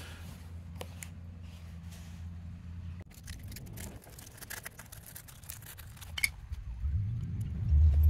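Light metallic clicks and ticks of a small nut and bolt being handled and threaded by hand at a battery cable lug on a cell terminal. A low steady hum runs under the first three seconds, and a louder low rumble comes near the end.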